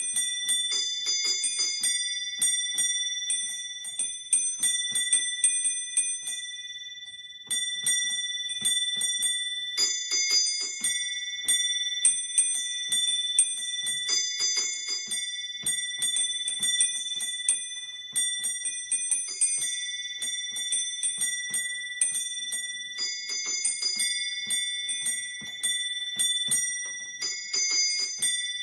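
Small bells of a miniature personal bell tower, several pitches struck in quick succession in a festive 'scampanio' peal, their ringing overlapping; the peal falters briefly about seven and a half seconds in, then carries on.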